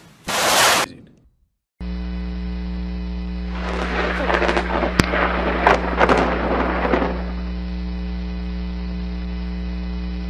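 A close lightning strike's thunderclap, a brief loud crack about half a second in. After a short break, a steady electrical hum runs on, with a few seconds of crackling noise in the middle and a single sharp crack about five seconds in.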